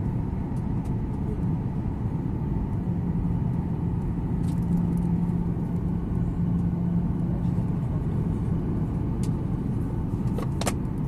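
Steady low rumble of jet engines and rushing air heard inside the cabin of a Ryanair Boeing 737 descending on approach with its flaps extended. A steady hum rises out of the rumble for a few seconds in the middle, and a brief sharp click comes near the end.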